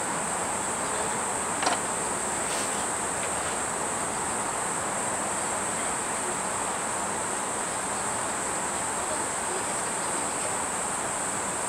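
Steady high-pitched chorus of insects such as crickets, one unbroken shrill drone, over a steady rushing background noise. A couple of faint clicks come about two seconds in.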